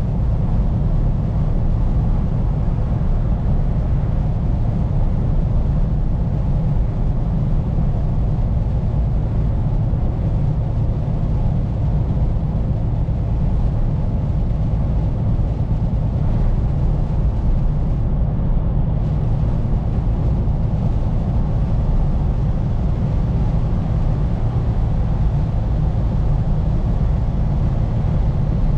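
Scania P410 truck driving at a steady pace, heard from inside the cab: a steady low drone of engine and road noise.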